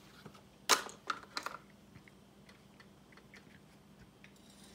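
Handling noises as a rubber walker tip is taken out of its box: a quick, loud cluster of clicks and crackles about a second in, then faint scattered taps and clicks.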